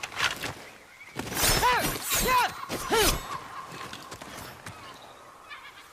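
Katana sword-fight sound effects: a sharp metallic clash just after the start, then three more clashes spaced under a second apart. Each of the three carries a short pitched tone that rises and falls, and the last fades out over a couple of seconds.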